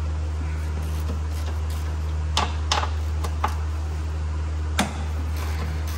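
A few short, sharp metallic clicks and clinks from tools and nuts at the strut's top mount, over a steady low hum in the background.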